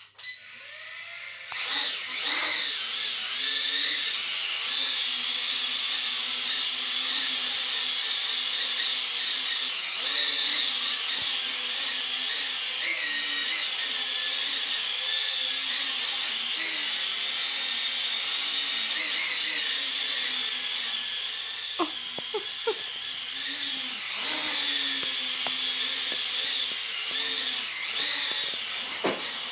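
Revell Technik X-Wing quadcopter drone's four small electric motors and propellers whining in flight, the pitch wavering as the throttle changes. The motors spin up about a second and a half in and ease off near the end.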